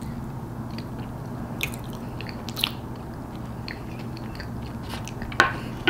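Close-up chewing of a mouthful of Cinnabon cheesecake: soft wet mouth clicks and smacks, a few of them sharper, over a steady low hum.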